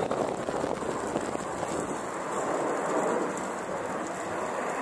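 Steady rushing roar of fighter jet engines from a formation of jets flying overhead, with no distinct whine or tone.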